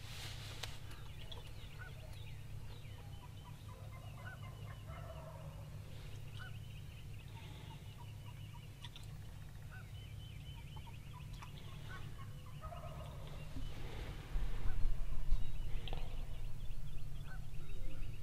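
Rio Grande wild turkeys gobbling, a rattling call repeated several times. From about 14 seconds in, a louder low rumble sits under the calls.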